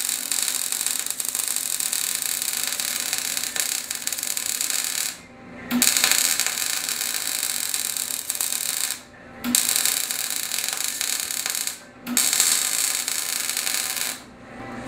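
Electric arc welding on steel: the arc's steady crackling hiss. It cuts out for about half a second three times as the arc is broken and struck again, and stops shortly before the end.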